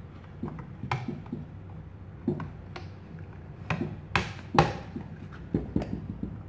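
Belt sander parts being handled and fitted by hand: the metal platen plate clicks and knocks against the plastic housing and rollers in a string of irregular taps. The two loudest knocks come a little past the middle.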